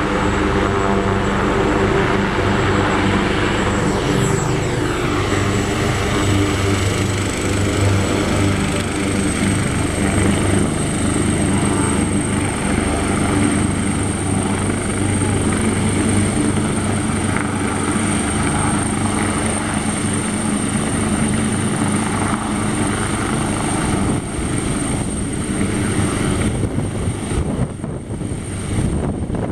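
AgustaWestland AW139 helicopter running on the ground with a steady high turbine whine over a heavy rotor rumble. Near the end the rotor beats grow distinct as it lifts off.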